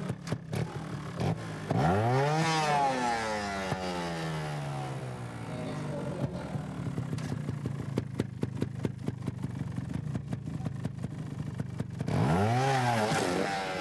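Two-stroke Montesa trials motorcycle engine idling, blipped hard about two seconds in, the revs falling back slowly, and blipped again near the end.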